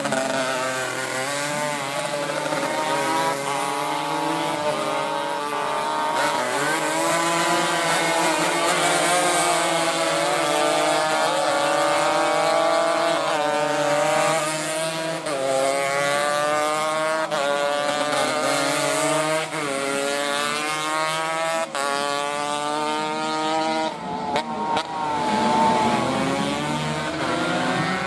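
Racing motorcycle engines revving hard, each one rising in pitch through the gears and dropping back at the shifts and into the corners, over and over, with more than one bike heard at once at times.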